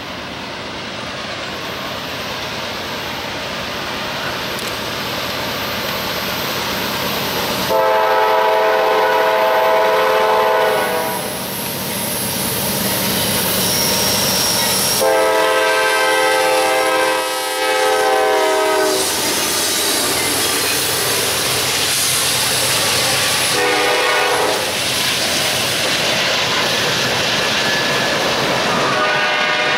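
CSX diesel locomotive hauling empty ethanol tank cars approaches, its rumble growing steadily louder, and sounds its multi-chime air horn four times: long, long, short, then a fourth long beginning near the end. This is the standard long-long-short-long grade-crossing signal. Between and under the blasts the empty tank cars' wheels clatter over the rails as the train passes.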